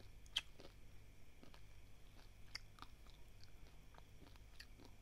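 Dry, uncooked basmati rice grains crunched between the teeth: scattered sharp cracks, the loudest about half a second in.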